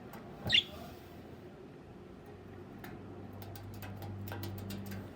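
Pet parrot giving one short, high chirp about half a second in, followed by a few faint clicks over a low background hum.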